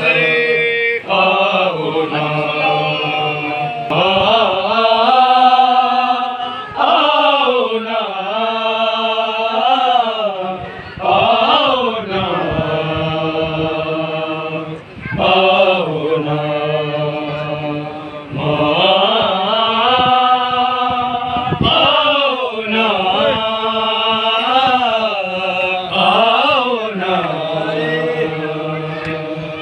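A noha, a Shia mourning lament, chanted in long, rising and falling melodic phrases with short breaks between lines.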